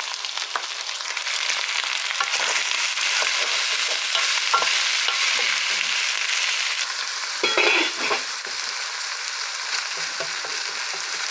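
Ground beef with freshly added chopped onion, garlic, celery and bell pepper sizzling in oil in a frying pan, with scattered scrapes and clicks of stirring and one louder stir about two thirds of the way through.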